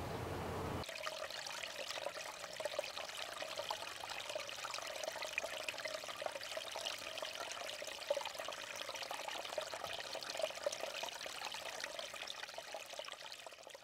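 A low rumble that cuts off abruptly about a second in, then a steady trickle of meltwater running through dead grass and thin ice.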